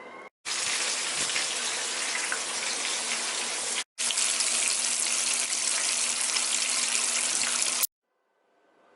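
Kitchen faucet running in a steady, loud stream into a sink. The sound breaks off briefly a little before halfway and stops abruptly near the end.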